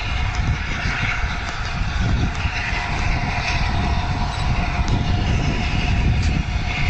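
LNER Peppercorn A1 Pacific steam locomotive 60163 Tornado running, a steady rumble with a hiss above it.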